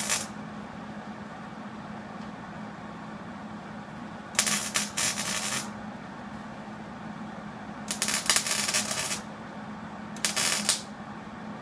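Wire-feed welder tack-welding a new steel rocker panel in place: three crackling, sizzling bursts of about a second each, over a steady low hum.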